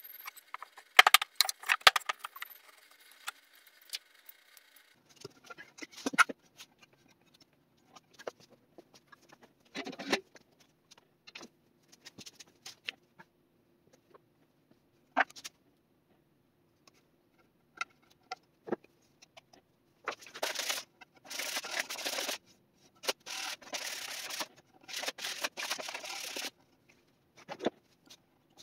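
Workshop handling sounds of wooden boards and dowels: scattered sharp clicks and knocks, then a run of short scraping bursts in the last third as the doweled boards are pushed and fitted together.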